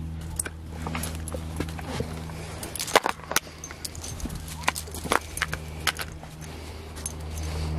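Footsteps on a path with irregular sharp clicks and knocks, thickest in the middle, over a steady low hum.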